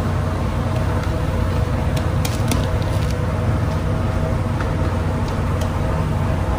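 Steady low machinery drone with a constant hum running under it. A few faint light clicks come about two seconds in.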